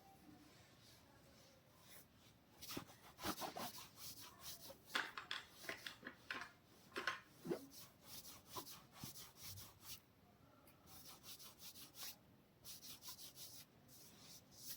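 Hands rubbing and massaging oiled hair and scalp, heard close up: a run of short, scratchy rubbing strokes that lulls for a couple of seconds about ten seconds in, then resumes.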